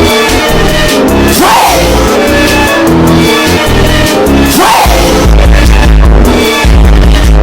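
Very loud music with heavy bass, a phrase repeating about every three seconds with a swooping rise and fall in pitch.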